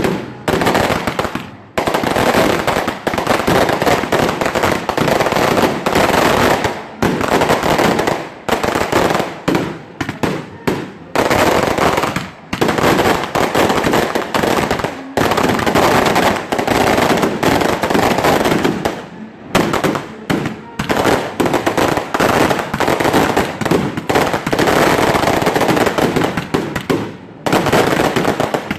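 Fireworks going off in a dense, rapid crackle of bangs, nearly continuous, with a few short breaks.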